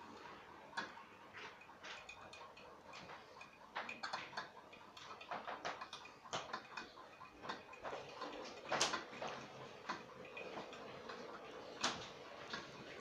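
Model train running on the layout: irregular clicking of the wheels over rail joints and points, with a faint steady hum underneath.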